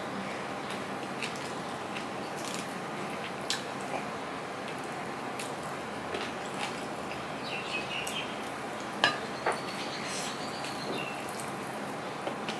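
Hand mixing rice and curry on a stainless steel plate: soft wet scraping of fingers through the food, with scattered light clicks against the metal, the sharpest about nine seconds in.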